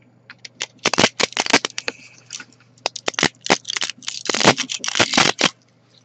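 3D-printed plastic crackling and snapping as gloved hands work it, in quick runs of small cracks and clicks. The clicks are densest about a second in and again from about four seconds in.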